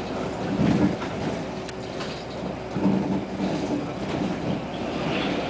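Articulated Scania N94UA Castrosua city bus under way, heard from the front of the passenger cabin: engine and road noise with a low hum that comes and goes.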